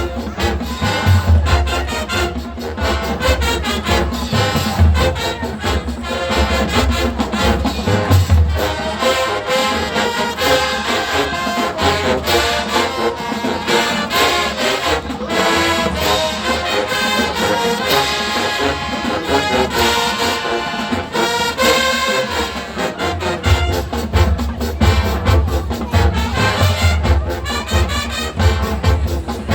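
High school marching band playing, brass section carrying the tune over drumline percussion. The heavy bass drum beats ease off through the middle and come back in strongly about 23 seconds in.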